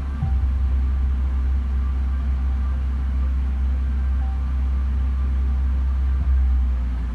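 A steady, loud, very deep rumble, with faint scattered higher tones above it.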